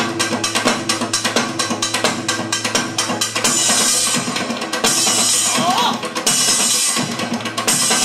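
Janggu (Korean hourglass drum) played fast with sticks, a dense run of strokes. From about halfway, washes of high hiss come and go over the drumming.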